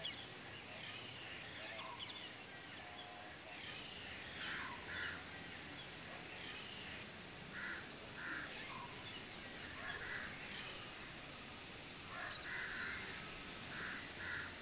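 Birds calling outdoors: short harsh calls, mostly in pairs, repeat several times over faint background chirping.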